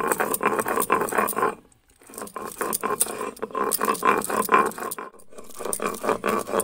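Stone roller of a sil-batta grinding boiled roti into a wet paste on the stone slab: rapid gritty scraping of stone on stone, pausing briefly twice.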